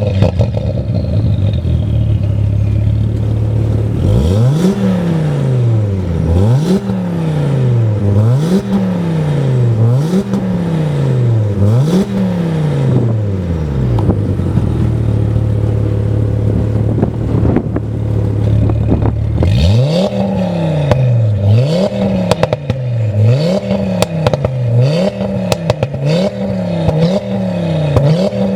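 Audi RS3's 2.5-litre turbocharged five-cylinder engine, through an Armytrix valved exhaust, idling and then free-revved in two sets of repeated blips, about five then about seven quicker ones, with a steady idle in between. Pops and crackles from the exhaust come as the revs fall, thickest in the second set.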